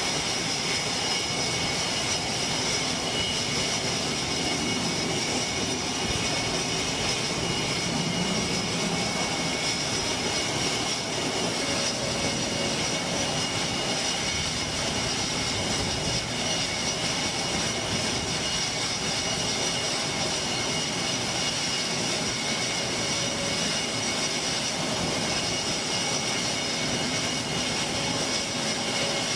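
Jet aircraft engines running steadily: an even rush of noise with high, constant whining tones.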